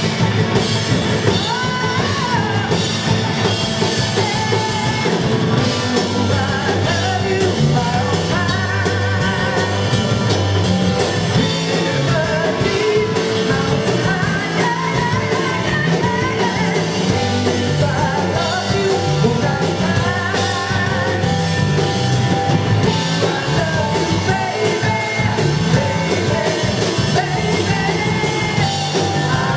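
Live rock band playing, with a woman singing the lead vocal over drum kit and electric guitar.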